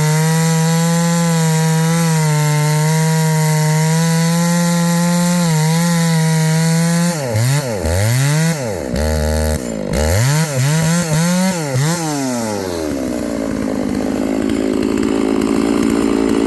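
Two-stroke Stihl 660-clone chainsaw running flat out through wood at a steady high pitch for about seven seconds. It is then revved up and down in several quick blips and drops back to a lower, steady idle for the last few seconds.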